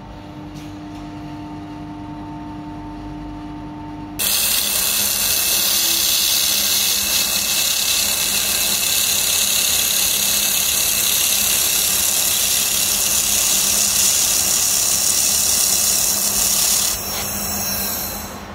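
A 3 kW fiber laser welding machine's cabinet hums steadily with a few fan-like tones. About four seconds in, a loud, even hiss starts abruptly as the handheld laser welding gun runs a seam on sheet steel. The hiss drops off sharply near the end.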